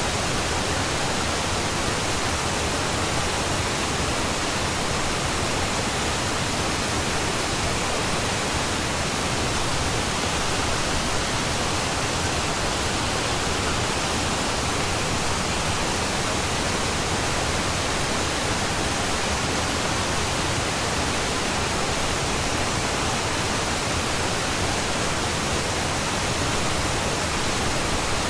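Steady, even hiss of pink noise that does not change in level or character: a noise bed of the kind laid under subliminal affirmation audio.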